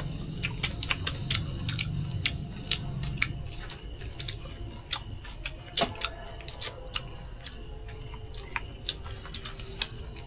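Eating sounds: irregular sharp clicks and smacks, a few a second, from chewing and utensils at a meal.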